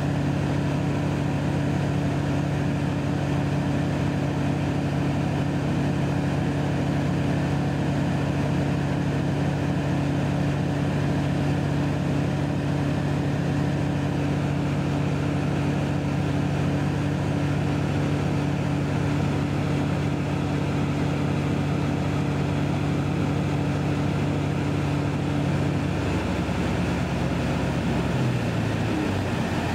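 Ultralight aeroplane's engine and propeller running with a steady drone, heard from inside the cockpit. Near the end the engine note changes and drops lower.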